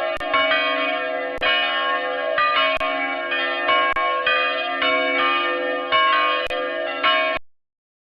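Bells ringing, several struck one after another so their ringing tones overlap in a continuous peal. The sound cuts off abruptly near the end.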